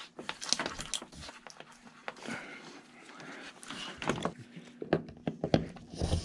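Handling noise from gloved hands and a hand tool working a thin safety cable at a ceiling-mounted speaker bracket: scattered light clicks and rustles, with a few sharper knocks near the end.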